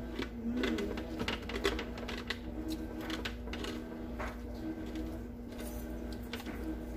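A basting brush dabbing barbecue sauce onto breaded chicken wings, making irregular light clicks and taps as it works against the wire rack and pan, over a steady low hum.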